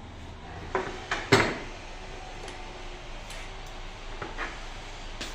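Metal tools and steering-rack parts being handled on a workbench: three sharp clunks and clatters close together about a second in, the third the loudest, then a few lighter knocks near the end.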